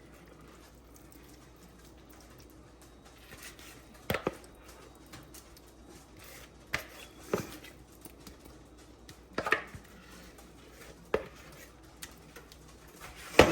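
A utensil knocking and scraping against a bowl while pie filling is scooped into a pie crust: a handful of short, separate knocks spaced a second or two apart.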